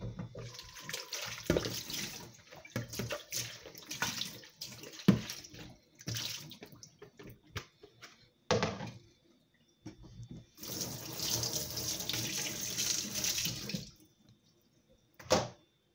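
Water running and splashing in a kitchen sink in several spells, the longest a steady run of about three seconds near the end, with a few sharp knocks in between.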